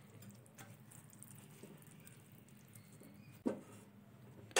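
Sugar syrup and melting butter bubbling faintly in a nonstick pan as a silicone spatula stirs them, with small irregular ticks and two short knocks near the end.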